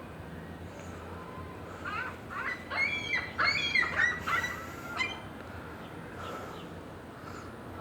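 Seagulls calling: a quick run of about ten harsh, repeated calls starting about two seconds in and stopping after about three seconds.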